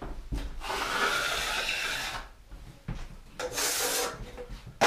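Steel trowel scraping through wet joint compound in two strokes, a long one of about two seconds and then a shorter one. A sharp knock comes near the end.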